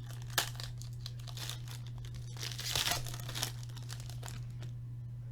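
Trading-card pack wrapper crinkling and being torn open, a series of short irregular crackles with the loudest patch about halfway through, over a steady low electrical hum.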